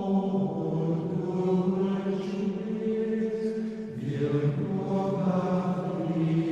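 Slow devotional chant music: long held vocal notes with a low drone, moving to a new chord about four seconds in.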